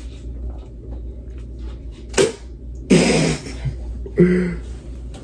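Stifled laughter: a sharp click about two seconds in, then a short breathy burst of voice and a brief low vocal sound a second later, over a steady low hum.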